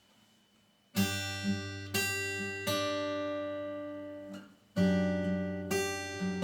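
Martin D-28 dreadnought acoustic guitar strummed: a chord struck about a second in, re-struck a few times and left to ring, then stopped. A second chord is struck and rings near the end.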